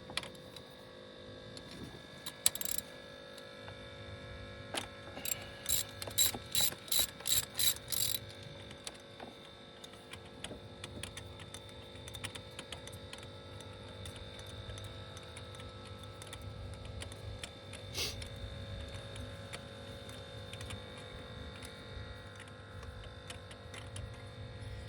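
Socket ratchet clicking as a spark plug is turned with a spark plug socket. A quick run of about nine sharp clicks, roughly three a second, comes about five seconds in, with a few lone clicks and lighter tool ticks around it.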